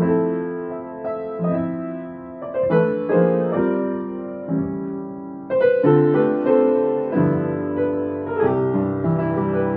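Piano played slowly and gently, chords and melody notes struck about once a second and left to ring.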